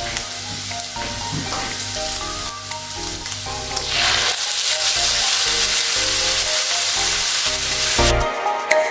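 Beef sizzling in a hot frying pan. About four seconds in the sizzle grows louder as chopped tomatoes go into the pan and are stirred with a wooden spoon, and near the end it cuts off suddenly, over background music.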